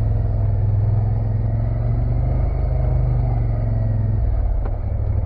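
ATV engine running steadily, heard close from on board the machine while it rides a muddy trail. Its low note drops slightly about four seconds in.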